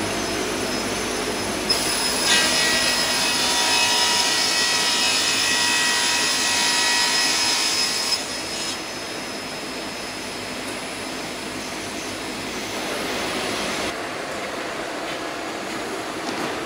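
Multi-rip circular saw machine running, with a board fed through its gang of saw blades from about two seconds in until about eight seconds in: louder while cutting, with a whine over the noise. After that the machine runs on steadily and more quietly.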